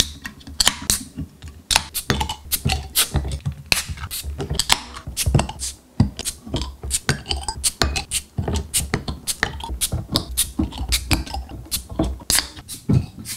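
Beer cans and glass beer bottles being opened one after another in quick succession, about three a second: can tabs cracking open and crown caps popping off under a bottle opener, each a short hissing pop.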